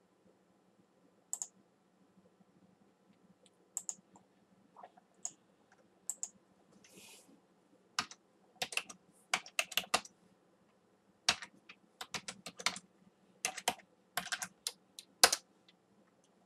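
Computer keyboard typing: a few scattered key presses at first, then quick runs of keystrokes through the second half.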